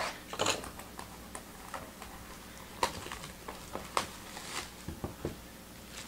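Trading-card packs and cards being handled and opened by hand: faint rustling with scattered small clicks, a few of them sharper.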